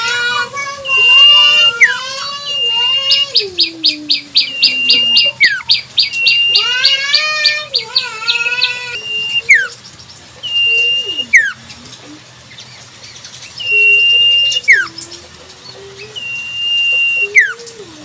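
Iora (cipoh) singing: short steady whistled notes repeated every couple of seconds and sharp downslurred notes, with a fast chattering run of chips lasting several seconds early on. A lower wavering, drawn-out tone runs beneath much of it.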